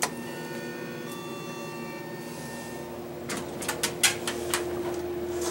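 Elevator car button pressed with a click, followed by several faint high tones fading out over about two seconds, over a steady hum. About three seconds in comes a run of clicks and knocks from the elevator doors closing.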